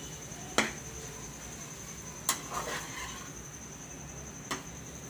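Steel spoon stirring bitter gourd and onions in a steel frying pan, knocking sharply against the pan three times about two seconds apart, the first knock loudest, with a short scrape after the second.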